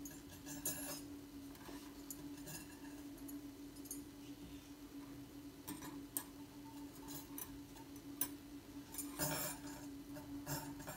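Soft rustles and light taps from a thin samosa pastry sheet being folded by hand on a stone counter, over a steady low hum.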